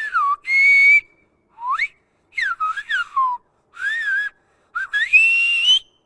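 Silbo, the Canary Islands' whistled language, whistled by a man: about six short phrases of a single clear whistle that slides up and down in pitch, with brief gaps between them. The last phrase is the longest and rises at the end. Together they whistle the Spanish greeting 'Desde Lanzarote, saludos a Agadir' (from Lanzarote, greetings to Agadir).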